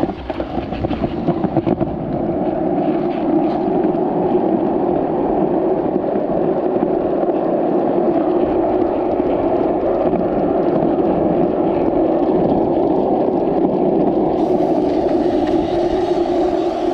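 Steady, even noise of a vehicle in motion.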